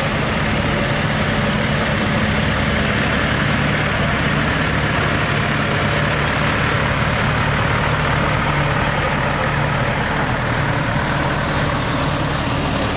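Diesel farm tractor engines running steadily at low speed as a tractor drives slowly past, with a second tractor pulling a wagon behind it.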